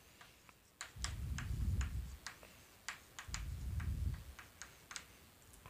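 Chalk tapping and scratching on a blackboard as a few words are written: a string of irregular sharp ticks, with two short dull low rumbles about a second in and again past the middle.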